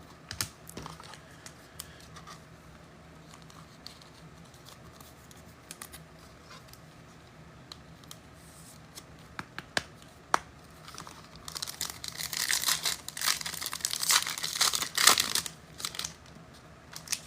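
Scattered light clicks of cards being handled, then from about eleven seconds in a football trading-card pack wrapper being torn open and crinkled for several seconds.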